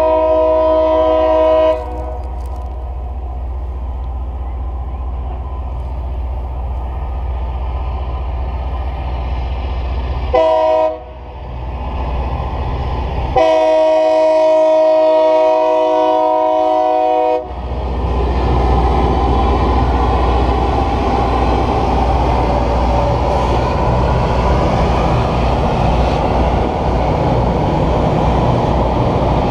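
Loram rail grinder's horn sounding for a grade crossing: a long blast ending about two seconds in, a short blast around ten seconds, then a long blast of about four seconds. After that the grinder train passes close by with a loud, steady grinding noise over its engines' low rumble as its stones grind the rail.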